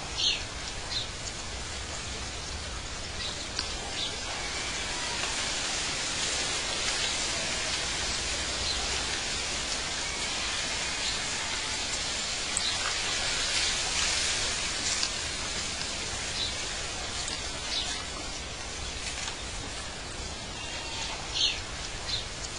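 Steady, even hiss with a few brief high chirps scattered through it.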